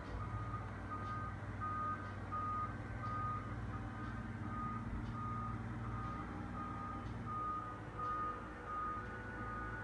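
A construction vehicle's reversing alarm beeping steadily at one pitch, a bit more than one beep a second, over the low rumble of a diesel engine.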